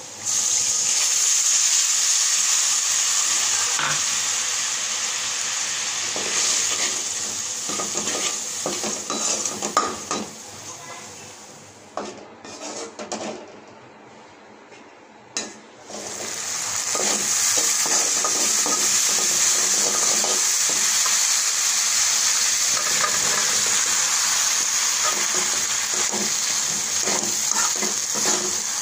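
Hot oil with fried onions and spices in a wok sizzling loudly as water is poured in, with a spatula scraping and stirring. In the middle it goes quieter for a few seconds with a few clicks, then a steady sizzle returns as chunks of sponge gourd are stirred through the spice paste.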